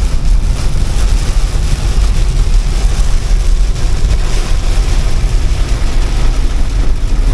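Heavy rain on the roof and windscreen of a moving Nissan Patrol, heard from inside the cabin, over a loud, steady deep rumble of tyres and engine on a wet dirt road.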